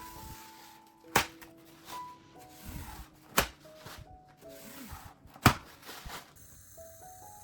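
Light background music with a simple stepping melody, broken by three sharp, loud knocks about two seconds apart and a few softer thuds between them.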